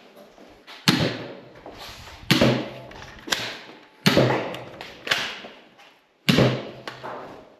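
Toy foam-dart blaster firing six sharp, echoing shots about a second apart, unevenly spaced.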